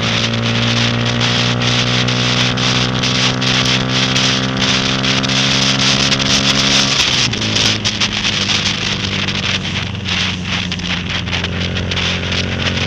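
Honda Grom MSX125's small single-cylinder engine pulling in gear, its pitch climbing slowly, then dropping abruptly about seven seconds in as the rider shifts up or eases the throttle, and running steadily after. Wind rush and rain drops ticking on the camera run under it.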